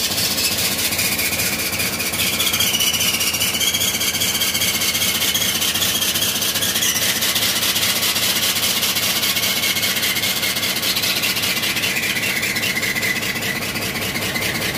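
Powertrac ALT 4000 tractor's diesel engine running steadily with its exhaust outlet sealed in plastic and a cap. Exhaust gas forcing its way out past the wrap makes a high, wavering squeal over the engine.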